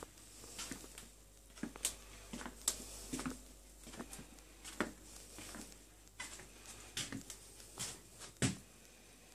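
Footsteps on wooden plank floors: irregular knocks and clicks, about one a second or less, over a faint steady low hum.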